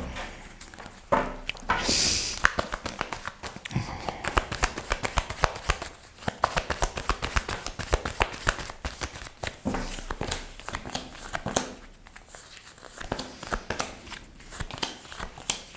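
Tarot cards being shuffled by hand: a quick, uneven run of papery card clicks and slides that pauses briefly a couple of times, with cards laid out on a tabletop.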